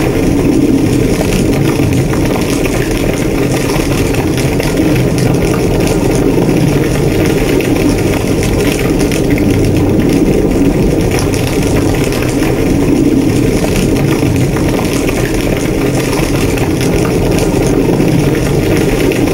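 A house fire burning: a dense, steady low rumble of flames with fine crackling throughout.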